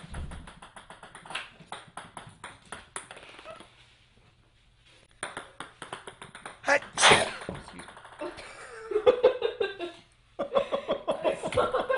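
A single loud sneeze just past halfway, after a few seconds of light clicks and taps; a short pitched sound follows, then voices near the end.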